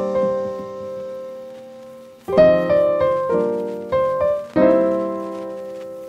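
Background piano music. A chord rings and fades through the first two seconds, then four more chords are struck over the next two and a half seconds, and the last is left ringing out.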